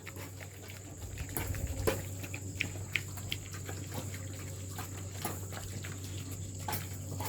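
Dogs eating a wet rice-and-chicken mash from bowls, with irregular wet smacking, lapping and clicking.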